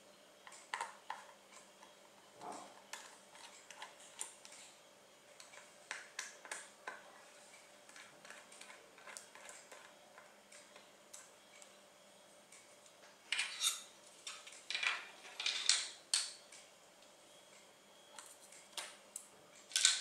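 Small screwdriver and screws on a laptop's metal hard-drive bracket: light, scattered clicks and scrapes, with a run of louder metallic clinks a little past the middle and another sharp clink near the end.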